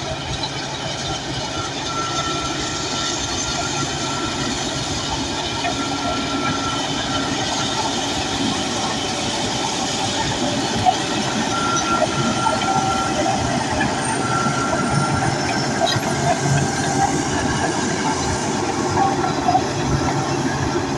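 Crawler bulldozer at work: its diesel engine running steadily under the clatter of its steel tracks, with brief high squeals and scattered clanks from the undercarriage.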